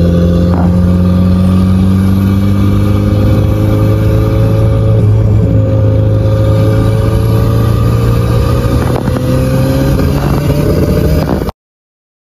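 1976 MGB's turbocharged 1.8-litre B-series four-cylinder engine pulling hard under about 15 psi of boost, heard from inside the cabin. Its pitch creeps slowly upward as the car accelerates, and the sound cuts off suddenly near the end.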